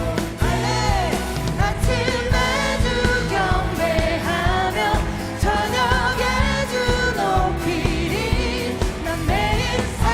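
Contemporary Korean worship music: a live praise band playing, with a singing voice over a steady drum beat.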